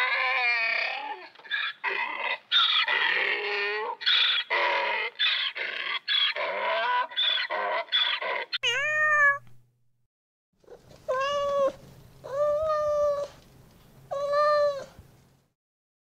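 Donkey braying, a long run of loud, harsh calls for about nine seconds. After a short gap, a kitten meows three times, each meow about a second long.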